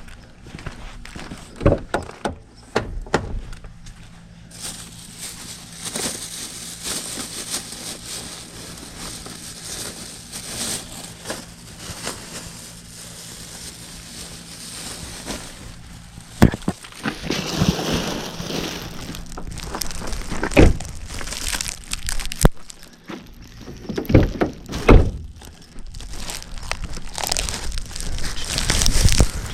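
Handling noise from a camera carried at someone's side while they move about: rustling and rubbing against the microphone, broken by several sharp knocks and bumps, with a faint steady low hum through the middle.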